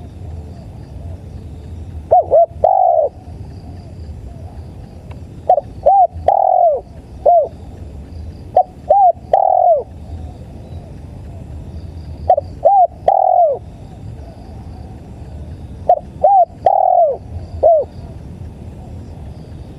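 Spotted dove cooing: five phrases of three or four short, arched coos each, repeated every few seconds. Faint high cricket chirps run underneath.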